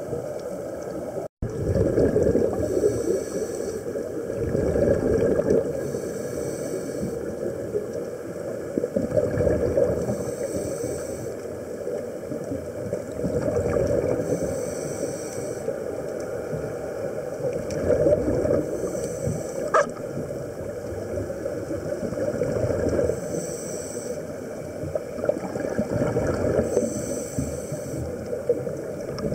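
Scuba diver breathing through a regulator underwater: a short hiss on each inhale and a gurgling rush of exhaled bubbles, repeating every few seconds.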